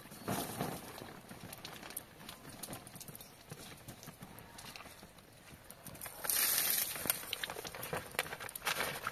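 Irregular clicks and knocks, with a short burst of hiss about six seconds in.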